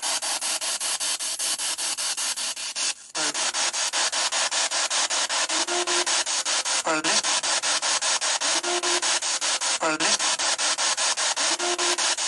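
Spirit box sweeping through radio stations: hissing static chopped into about ten bursts a second, with a short dropout about three seconds in and brief scraps of voice-like sound around seven and ten seconds in.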